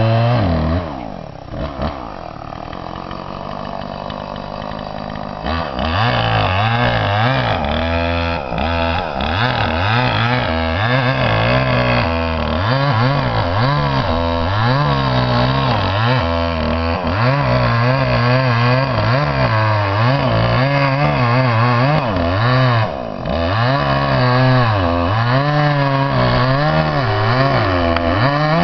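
Chainsaw running at high revs while cutting timber, its pitch dipping and recovering again and again under the load of the cut. It drops to a lower, quieter run for a few seconds about a second in.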